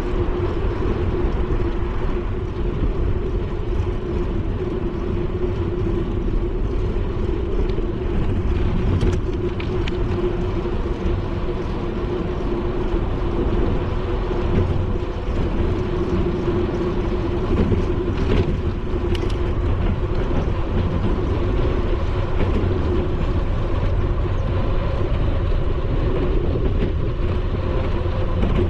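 Steady wind rush on a GoPro's microphone from a moving bicycle, with a steady low hum underneath.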